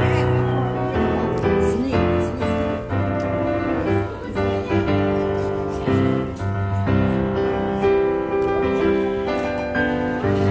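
Piano music playing a melody of held notes.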